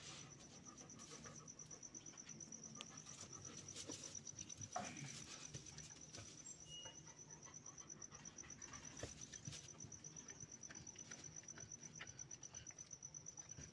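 Quiet: an insect, a cricket, chirping steadily in a fast, even, high-pitched pulse, over faint rustling and soft clicks from a German shepherd moving in straw bedding, with one louder rustle about five seconds in.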